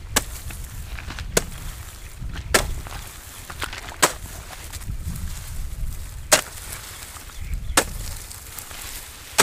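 A hand hoe with a metal blade chopping into dry, cracked field soil to break up the clods. Sharp strikes come roughly every second and a half, about seven of them.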